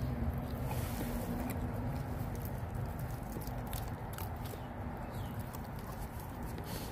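Seven-week-old puppies chewing and tearing at raw golden pompano, bones and all, with scattered sharp crunches and clicks over a steady low rumble.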